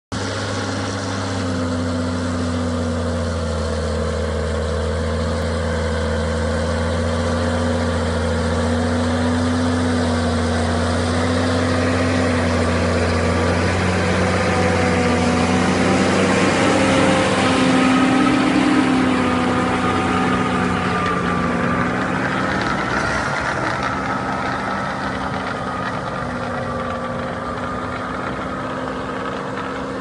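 Large farm tractor's diesel engine running steadily under load as it pulls a subsoiler through the soil. It grows louder as the tractor passes close by about halfway through, then fades as it moves away.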